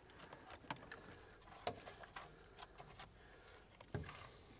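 Faint, scattered clicks and small rattles of jumper-cable clamps and wires being handled at an old diesel engine's starter solenoid.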